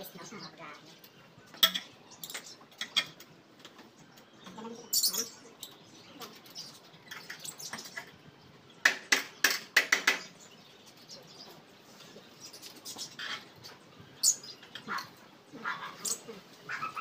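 Screen door frame being fitted into a doorway: scattered knocks and taps, with a quick cluster of sharp knocks about nine seconds in. Small caged birds chirp now and then.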